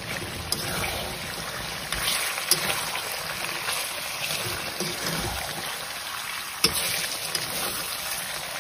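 Pork curry sizzling gently in a metal kadai as a metal spatula stirs and scrapes through it, with a few sharp clicks of the spatula against the pan. The pork is frying in the oil it has released, with ginger-garlic paste being mixed in.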